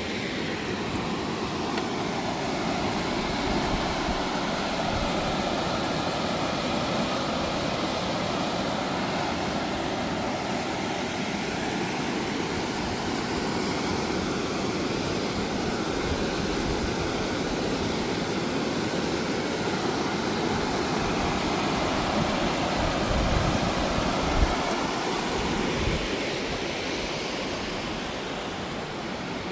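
Steady rush of the Middle Fork Feather River's whitewater rapids flowing below. A few brief low thumps come near the end.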